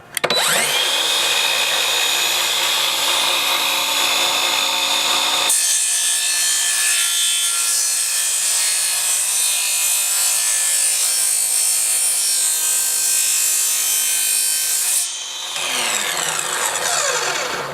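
Craftsman CMCS714M1 cordless miter saw with a 62-tooth Diablo blade, spun up and chopped straight down through hard, resin-filled OSB in a compound miter and bevel cut. The motor whine starts right away and turns brighter and hissier about five seconds in. About fifteen seconds in the trigger is let go and the blade winds down with a falling whine.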